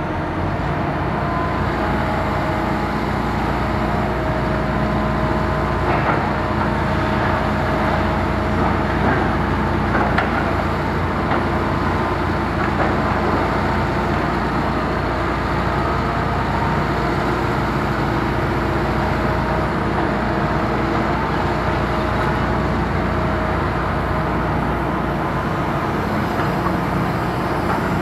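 Diesel engines of two Hitachi demolition excavators, a ZX 350-3 high-reach and a ZX 225 USR, running steadily under load, with a few sharp knocks and crunches of concrete being broken and handled.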